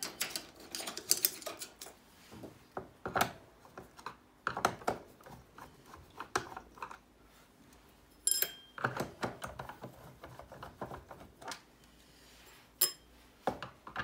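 Screwdriver clicking and scraping in the screw holes of a small Hoover canister vacuum's plastic casing as its screws are worked out, with scattered handling taps. Two sharper clinks ring briefly, one about eight seconds in and one near the end.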